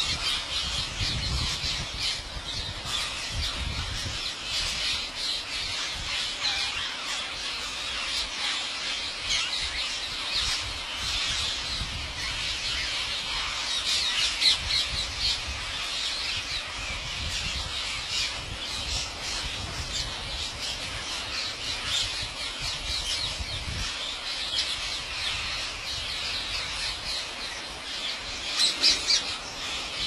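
A huge flock of rose-ringed parakeets calling all at once: a dense, unbroken chorus of high-pitched squawks, with louder peaks about halfway through and near the end.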